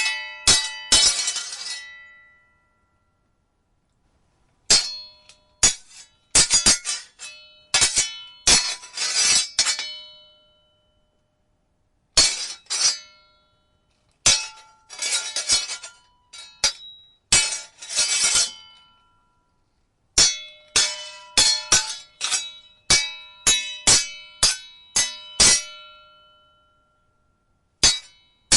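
Sword blades clashing in quick flurries of metallic clangs, each strike ringing briefly, with silent pauses between the bouts.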